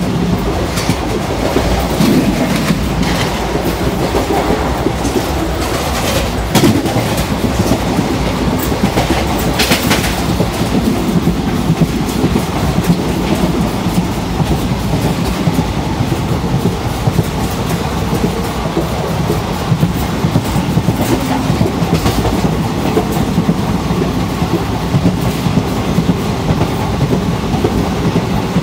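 Express passenger train coach running at speed: a steady rumble of wheels on rail with repeated sharp clicks and knocks, heard at the coach's open doorway.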